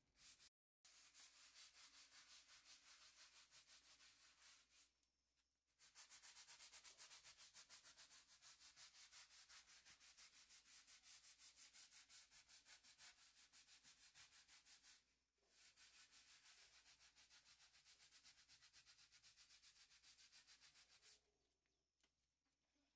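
A small hand scrub brush scrubbing algae and mildew off a rough plaster wall in quick back-and-forth strokes. It stops briefly a few times: about five seconds in, about fifteen seconds in, and near the end.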